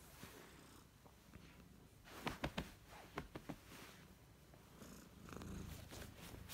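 Domestic cat purring softly and steadily while being stroked, with a handful of sharp clicks and rustles from about two to three and a half seconds in.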